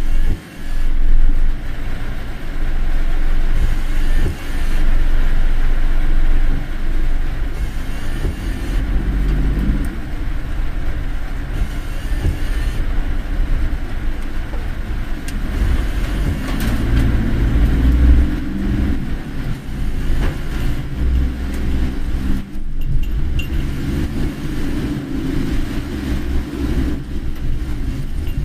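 Car driving along a road: a steady low rumble of engine and tyre noise that rises and falls a little.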